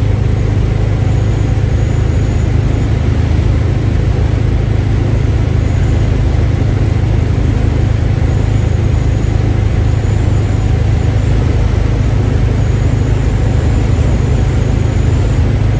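Classic Volkswagen running steadily at cruising speed, heard from inside the cabin: a constant low engine drone under road and wind noise. The engine is running well on its newly fitted Pertronix electronic ignition.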